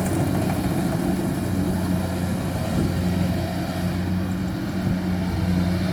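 Kubota rice combine harvester's diesel engine running at a steady drone, with the machine's working noise over it.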